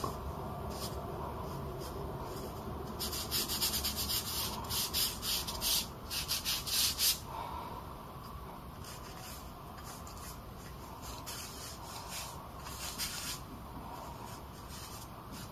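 A Chinese painting brush loaded with dry ink scrubbed across the paper in quick strokes, rubbing texture into the shaded side of a painted rock. A run of fast, louder strokes begins about three seconds in and lasts some four seconds, and lighter strokes follow later.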